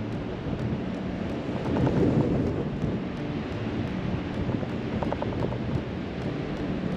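Wind buffeting the microphone of a camera mounted outside a moving truck, a steady low rumbling noise over the sound of the truck driving on beach sand, swelling briefly about two seconds in.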